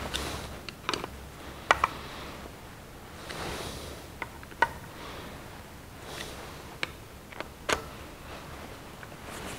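Screwdriver turning the retaining screws that fasten the throttle body to the main body of a Rochester four-jet carburetor, with irregular sharp metal clicks about every second.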